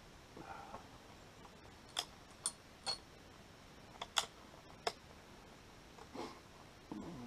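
Handling noise: about six sharp, light clicks and knocks in a loose cluster, two of them close together, among faint soft rustles.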